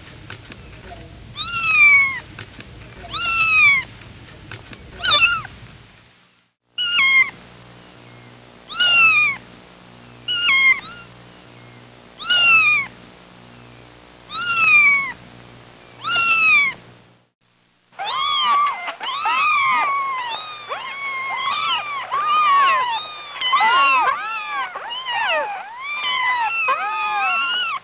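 Kittens meowing: single short, high mews falling in pitch, one every second or two. About two-thirds of the way through, several kittens mew over one another in a dense chorus.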